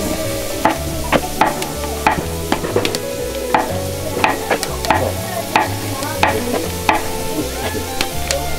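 A utensil stirring and scraping in a cooking vessel, with irregular sharp clinks and knocks, about one or two a second.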